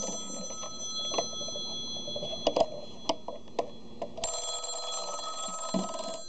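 Rotary-dial desk telephone's bell ringing with its ringer turned down, on the usual ring-and-pause cadence: one ring ends just after the start and the next, about two seconds long, comes in after about four seconds. Between the rings come several sharp knocks and clunks as the phone is handled and tipped over.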